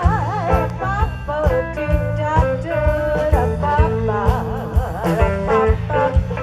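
A song with a singer holding wavering notes over a steady drum beat, about two hits a second, and a bass line.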